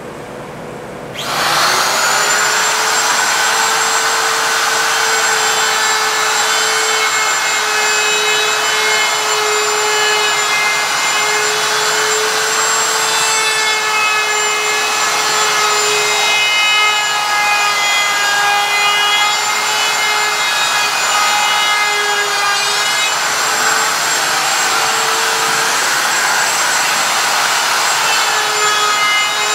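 Handheld wood router switched on about a second in, its whine rising quickly to a steady high pitch, then running as its bearing-guided bit cuts along the edge of a wooden board. The pitch sags briefly a few times as the bit takes load.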